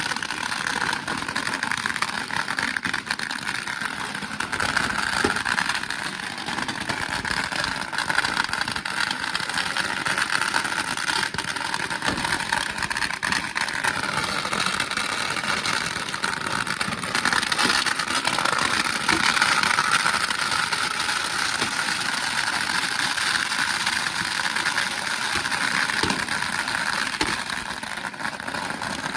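Thousands of firecrackers going off together in a dense, continuous crackle.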